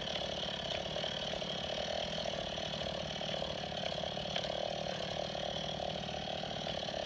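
STIHL MS 180 C chainsaw's small two-stroke engine running steadily at low speed, close to idle, with no revving.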